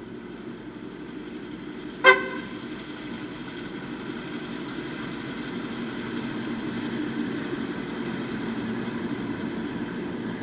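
Diesel-electric locomotives hauling a freight train, their engines running steadily and growing louder as they approach. A single short horn toot sounds about two seconds in.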